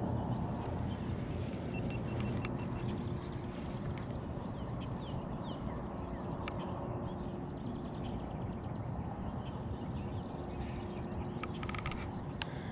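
Outdoor riverside ambience: a steady low rumble with a faint constant hum under it, and scattered faint bird chirps. A few small clicks come near the end.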